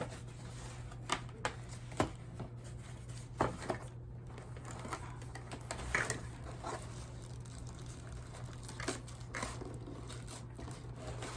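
Plastic packaging crinkling and rustling, with scattered light clicks, as a ring light is unwrapped. A steady low hum runs underneath.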